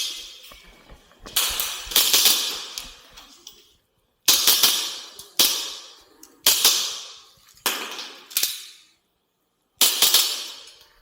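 WE G17 gas blowback airsoft pistol firing in quick strings of shots, six groups with short pauses between them, each group trailing off in a hiss.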